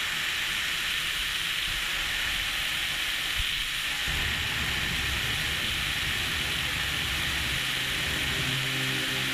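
A steady rushing hiss, joined by a low rumble about four seconds in, with soft music notes beginning near the end.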